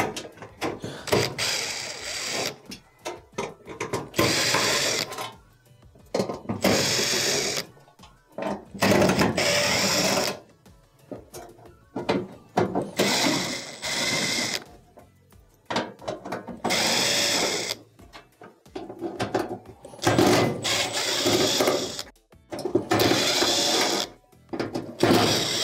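Makita cordless impact driver with a Phillips bit backing out the screws that hold down a gas range cooktop. It runs in about nine short bursts of a second or so, with pauses between screws.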